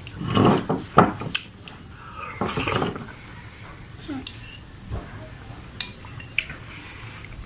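Spoon and dishware clinking and scraping: a cluster of clinks and scrapes with one sharp clink about a second in, then only light ticks.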